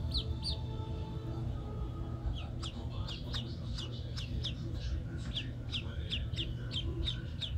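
Mottled duck ducklings peeping: short, high, falling peeps, a couple at first, then a pause of about two seconds, then about three peeps a second, over a steady low hum.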